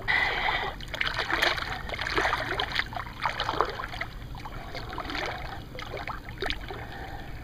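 Shallow pond water splashing and sloshing in irregular bursts as a large channel catfish is held in it by hand and moved about to revive it before release.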